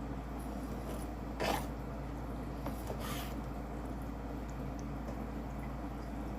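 Kitchen handling noises: two short noisy swishes, about one and a half and three seconds in, over a steady low hum.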